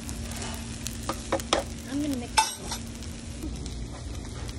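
Hot stone bibimbap sizzling in its heated stone bowl while it is stirred, the rice frying against the hot stone. A few sharp scrapes and clicks of the utensil against the bowl come between about one and two and a half seconds in.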